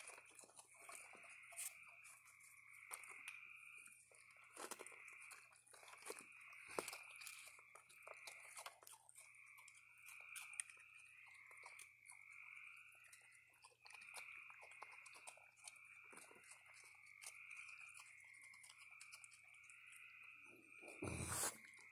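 Raccoons faintly crunching and chewing dry food such as Cheerios, cookies and peanuts, with many small clicks. Behind them is a steady run of trilling calls, about one a second, and a louder rustling thump comes near the end.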